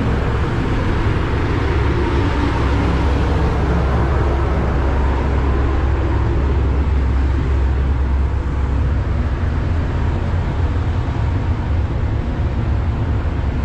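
Steady low rumble and hum of a car ferry's engines and machinery, running while the ship waits in port.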